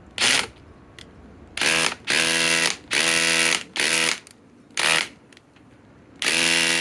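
Cordless impact driver hammering in repeated short trigger pulls, about eight bursts of a steady buzzing rattle, while it tries to back out a stuck fastener that will not come loose.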